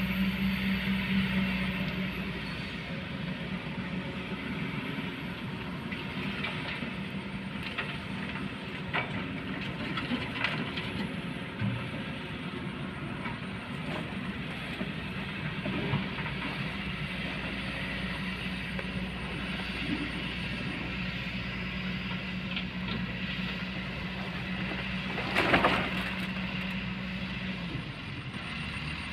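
Kobelco hydraulic excavator's diesel engine running steadily, with scattered knocks and clatter of rock and earth and one loud thud about three-quarters of the way through.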